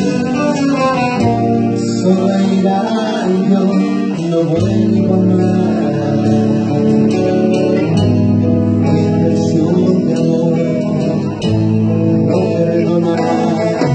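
Live grupera band music: a guitar-led band playing, with male voices singing into microphones.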